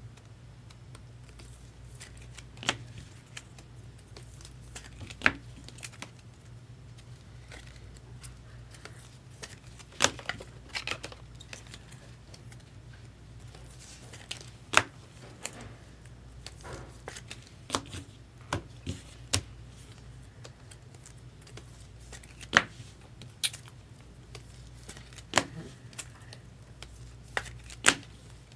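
Trading cards and their packaging being handled: scattered sharp clicks and taps, a dozen or so at uneven intervals, with faint rustling between them over a steady low hum.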